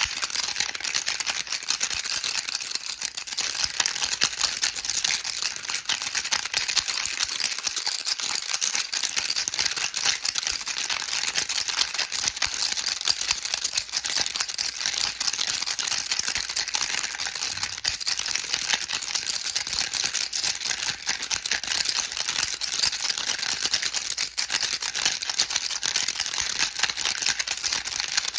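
Baby rattle shaken without pause, its small beads making a dense, even clatter of fine clicks.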